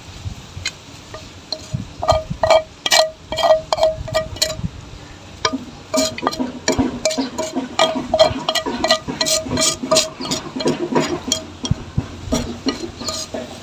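Wooden chopsticks scraping and knocking against a metal wok as food is pushed out onto a steel plate, each knock making the metal ring briefly. The clatter comes in quick runs from about two seconds in until near the end.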